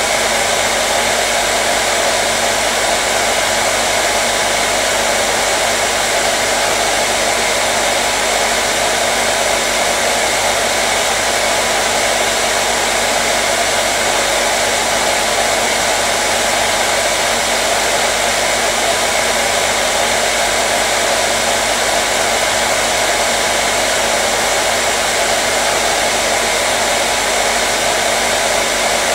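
Hair dryer running steadily on one setting, an even whooshing rush of air with a faint motor hum beneath.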